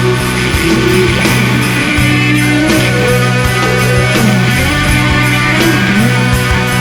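Loud rock music with distorted guitars and a steady drum beat, no vocals.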